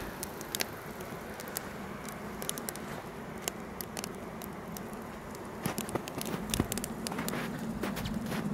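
Wood fire crackling in a cinder-block rocket stove, with frequent sharp pops and snaps.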